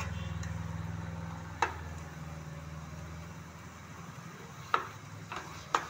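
Metal spatula stirring and scraping cooking bottle gourd pieces in a metal pot, with three sharp knocks of the spatula against the pot, one about a second and a half in and two near the end, over a steady low hum.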